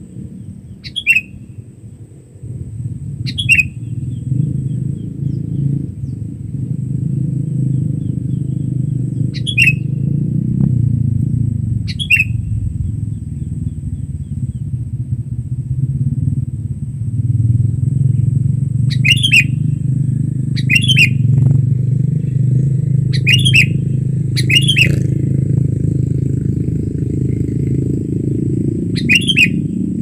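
Sooty-headed bulbul (kutilang) giving loud, sharp call notes, each a quick downward sweep, about nine at irregular intervals, some in close pairs. A steady low rumble runs underneath.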